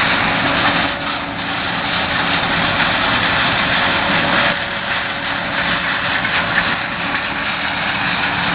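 Corn harvester running steadily in the field: a constant engine hum under a broad mechanical noise.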